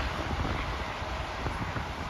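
Wind blowing on the microphone: a steady rushing hiss with uneven low buffeting.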